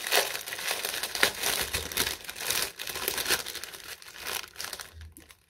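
Clear plastic bags crinkling as they are handled: a dense, crackly rustle that thins out near the end.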